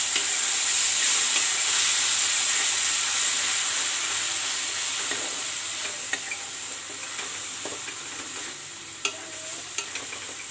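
Onions and ginger-garlic paste sizzling in hot oil in a wok while a wooden spatula stirs and scrapes them; the sizzle slowly fades, and near the end the spatula knocks a few times against the pan.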